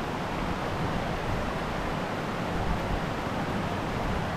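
Steady rushing of a waterfall: water pouring over the rock lip at the top of the falls.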